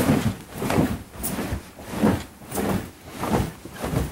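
Bed creaking in a steady rhythm, about two creaks a second.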